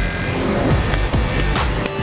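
Electronic background music with a steady beat of deep kick-drum hits and sustained synth tones.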